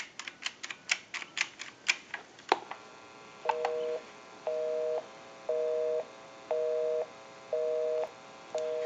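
Push-button keypad of a Western Electric Trimline telephone clicking as a number is keyed in, then a single click. From about three and a half seconds in comes a line busy signal: a two-tone beep pulsing on and off about once a second, six times.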